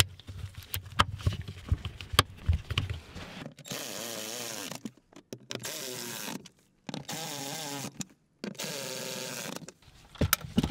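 Light knocks and clicks as the fuel pump access cover and its rubber seal are handled. Then a ratchet with a 10mm socket clicks rapidly in four bursts, running down the nuts of the fuel pump access cover on the floor pan.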